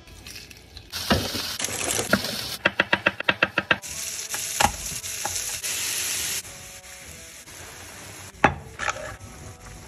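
Cooking sounds in quick succession: food sizzling in a hot frying pan, a fast run of about ten knife chops on a wooden cutting board, then more sizzling that cuts off suddenly. Near the end, stirring in the pan with one sharp knock.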